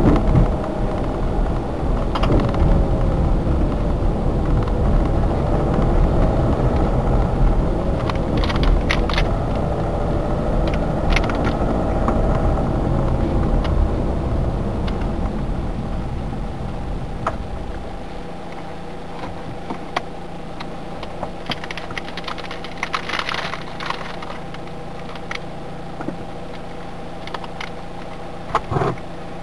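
Car engine and road noise heard from inside the cabin while driving, with a few sharp clicks or rattles. About two-thirds of the way in the rumble drops away as the car slows to a stop and settles to a steady idle.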